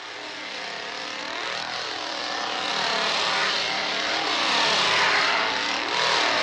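Two-stroke chainsaw engine running and being revved up and down, its pitch sweeping up and falling back again, growing louder over the first few seconds.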